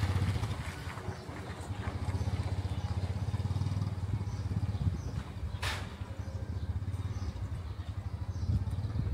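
An engine running steadily close by, a low hum with a fast even pulse. A brief hiss comes a little past halfway.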